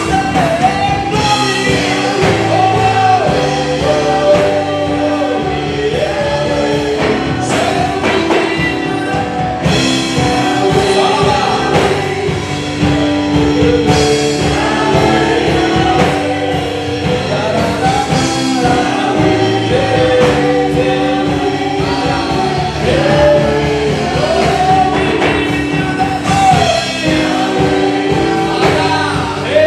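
Gospel worship song: voices singing a melody over steady instrumental accompaniment.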